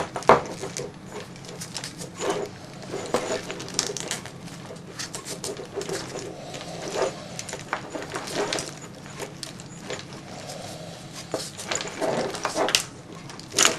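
Non-adhesive wiring-harness wrap crinkling and rustling as it is pulled tight and wound around a bundle of wires by hand, with many irregular small crackles and clicks.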